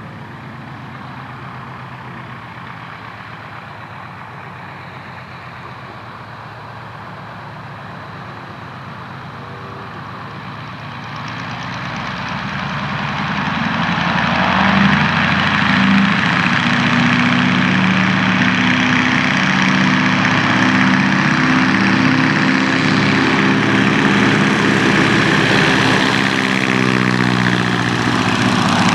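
Boeing-Stearman Model 75 biplane's radial engine and propeller running at takeoff power during the takeoff run. It grows much louder from about eleven seconds in as the plane comes toward and past, and the pitch drops slightly near the end as it lifts off and goes by.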